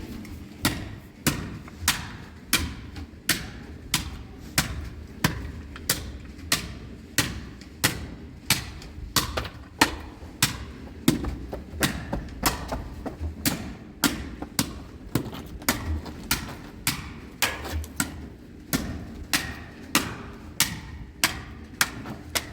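Steady series of sharp thudding blows, about three every two seconds, as of something being struck over and over.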